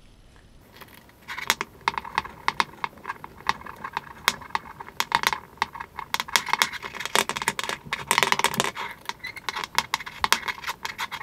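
Rapid, irregular metallic clicking and rattling as a bolt is threaded by hand through a steadicam's aluminum frame into the grip's half shaft and tightened. The clicking starts about half a second in.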